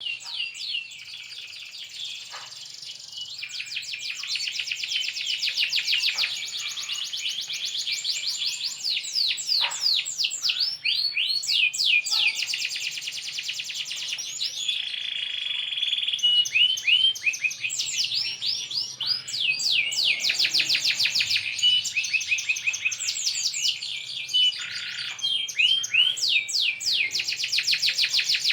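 Canary singing continuously: long runs of fast trills and rapidly repeated high notes, with only brief breaks.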